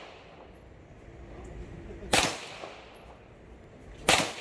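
Two 9 mm pistol shots about two seconds apart, one a little over two seconds in and one near the end, each a sharp crack followed by a short echo.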